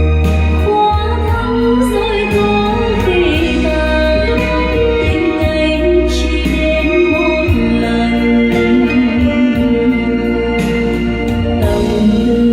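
A recorded song played back through JBL 4312 hi-fi loudspeakers: a singing voice over sustained keyboard tones and a steady bass line.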